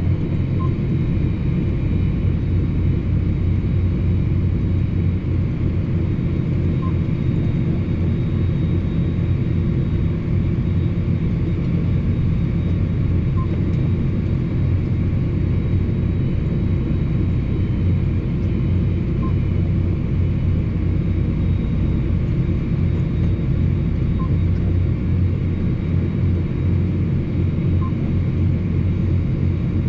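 John Deere 8245R tractor's six-cylinder diesel engine running steadily under load, a deep even drone heard from inside the closed cab while towing a loaded tandem trailer in transport.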